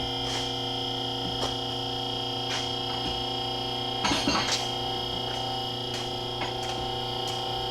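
QuickJack lift's electric hydraulic pump running with a steady hum while the car is raised. Its safety locks click about once a second as they ratchet up, and there is a brief clatter about four seconds in.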